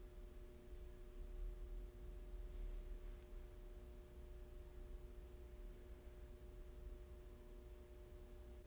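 Faint room tone with a steady hum of a few low, unchanging tones and a low rumble underneath.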